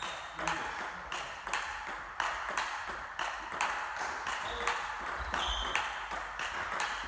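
Table tennis backhand rally: the ball clicking off the bats and the table in a fast, even rhythm, about three hits a second.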